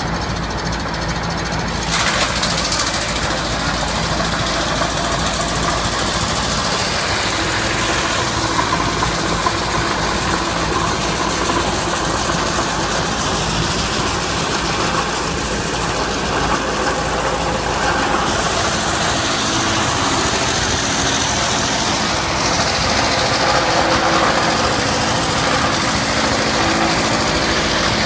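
ЛАЙТ S-800 wood-shaving machine running, its spinning rotor cutting slab wood into thin shavings: a steady machine hum under a loud cutting noise. The noise grows about two seconds in and then rises and falls as the wood is fed in.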